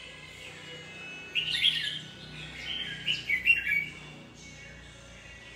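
Caged red-whiskered bulbul singing: two bursts of quick, high song phrases, the first about a second and a half in, the second longer, around three seconds in.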